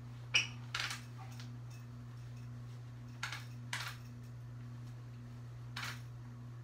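Five short clicks and rustles of something being handled, the first the loudest, over a steady low hum with a faint tone pulsing about twice a second.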